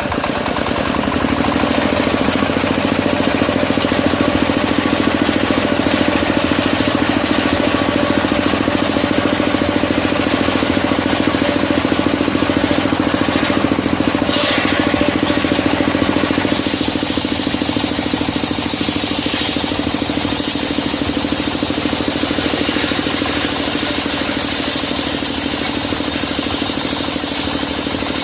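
Circular sawmill running with the steady, even rhythm of its drive engine. A higher hiss joins a little over halfway through and holds to the end.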